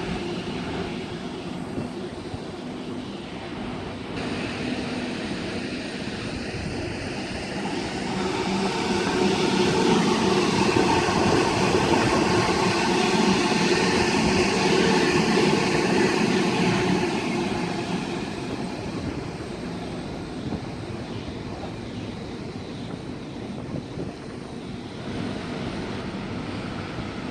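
Steady rumble of a large passing vehicle, swelling to its loudest about ten to fifteen seconds in and then fading away.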